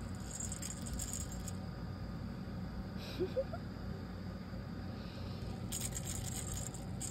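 Light jingling rattle of a small object being handled, in two spells: through the first second and a half, and again from about six seconds in. A short, faint rising call comes about three seconds in.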